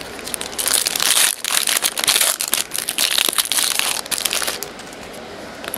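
Plastic trading-card pack wrapper crinkling as it is torn open and handled, from about half a second in to about four and a half seconds, then softer clicks and rustles of the cards being handled.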